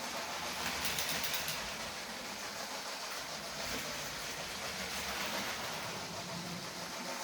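Battery-powered Lego train running fast on plastic track: a steady electric-motor whir and wheel rattle, with a quick run of clicks about a second in as it passes over track joints.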